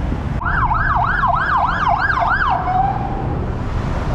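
Emergency vehicle siren in a fast yelp, sweeping up and down about three times a second over street traffic. It starts suddenly, then winds down and fades out about halfway through.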